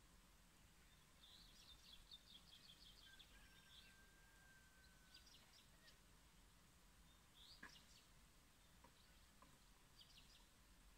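Faint bird chirps over quiet outdoor ambience: short high chirps every few seconds, with a quick run of notes about a second in.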